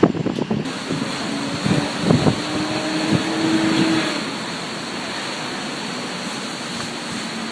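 Strong storm wind buffeting the microphone in irregular thumps over city traffic, with a steady vehicle hum in the first half. After about four seconds it settles into an even rush of wind and traffic noise.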